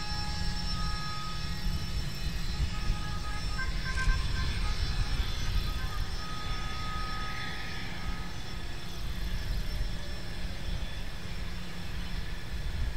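Gulfstream IV–based U-4 jet taxiing, its two rear-mounted Rolls-Royce Tay turbofans running steadily at low power: a constant high whine over a low rumble.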